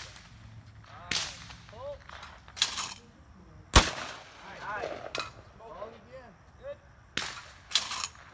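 A shotgun fired once about four seconds in, a sharp loud bang at a thrown clay target. Several fainter sharp bangs come before and after it, with faint voices between.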